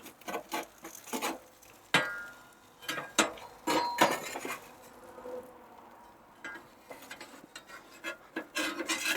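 Big flat metal spatulas scraping and clinking against the kamado grill's grate while lifting a salmon fillet off it: a run of irregular clicks and scrapes, with a louder ringing clink about two seconds in.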